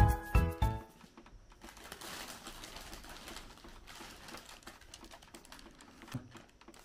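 A music jingle with a steady beat stops under a second in. Then a thin plastic shopping bag rustles and crinkles as a toddler rummages in it.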